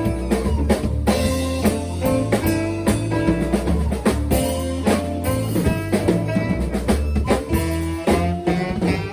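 Live band playing: a drum kit keeps a steady beat under a bass line and guitar.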